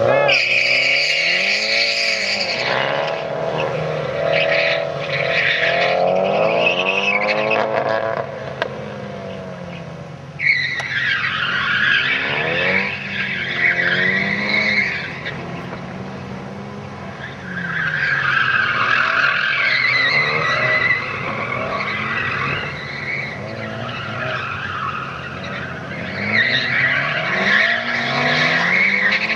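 Nissan S14 Silvia's engine revving up and down hard through a cone course, with repeated bursts of tyre squeal as the car slides through the turns.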